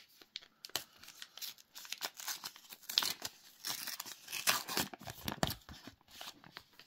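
A trading-card booster pack wrapper being torn open and crinkled, a run of rips and crackles that stops near the end.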